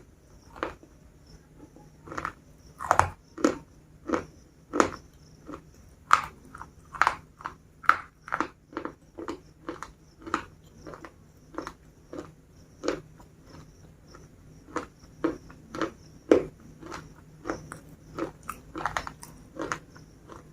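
Crisp biscuits being bitten and chewed close to the microphone: a continuous run of dry crunches, roughly two a second.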